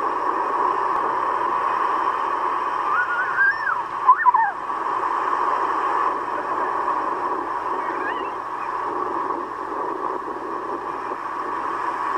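Surf breaking and washing up a beach, a steady rushing noise. A few brief high gliding cries rise and fall about three to four seconds in, and once more about eight seconds in.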